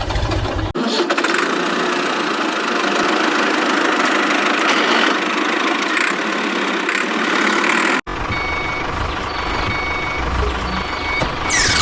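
A vehicle engine running steadily, heard in two cut-together stretches, with a quick falling swish near the end.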